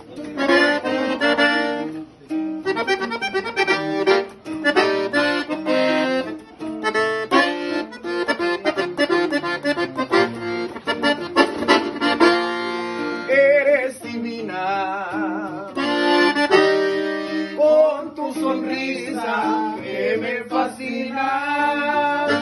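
Hohner button accordion playing a fast instrumental passage of a norteño ranchera, with a guitar strummed underneath.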